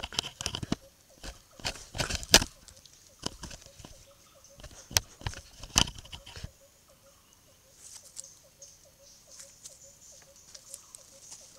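Sumatran dholes knocking, scraping and rustling against a camera trap as they push it around. The bumps are loud and irregular for the first six seconds or so, sharpest about two and five to six seconds in, then die down to light scratches and ticks, with a faint steady hum underneath.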